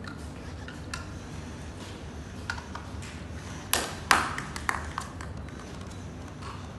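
Knocks and taps from handling the parts of an upholstered furniture frame during assembly: two sharp knocks about four seconds in, with a few lighter clicks and taps around them.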